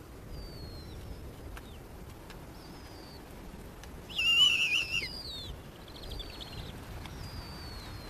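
Snowy owl chicks begging at the nest: one loud, wavering, high squealing call about four seconds in, followed by a faint chitter. Faint thin downward whistles come and go over a low steady hiss.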